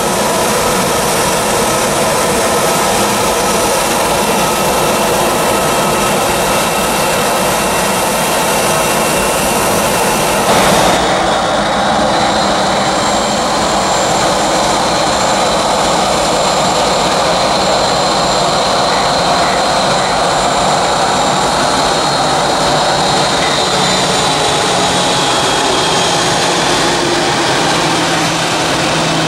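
Airliner jet engines running: a steady rush, then an abrupt change about ten seconds in to an Airbus A320 taxiing on its engines, with a steady high whine that dips slightly near the end.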